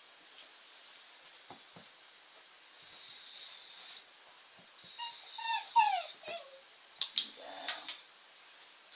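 A young puppy whining in high-pitched whimpers, three bouts of crying, the middle one with cries falling in pitch. Two sharp clicks come near the end.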